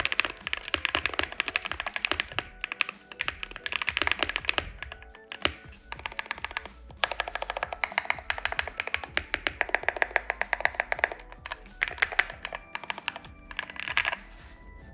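Fast typing on a Wooting 60HE keyboard with Gateron Jade switches: quick runs of high-pitched, clacky keystrokes broken by short pauses, over background music. The typing stops near the end.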